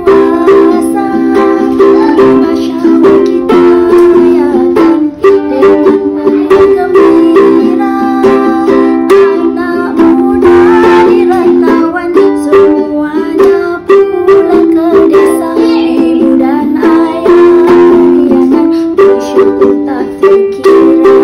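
Background music: a plucked-string tune with sustained chords and a steady run of plucked notes.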